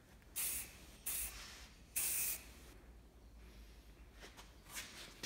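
Aerosol spray can of matt black paint spraying in three short bursts of hiss over the first two and a half seconds, then a few faint clicks near the end.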